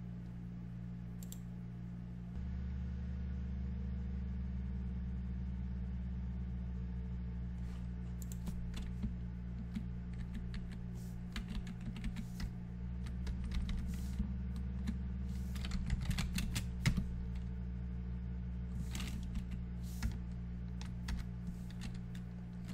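Computer keyboard typing: scattered keystrokes that begin about eight seconds in and come thickest in a quick run past the middle, over a steady low hum that gets a little louder a couple of seconds in.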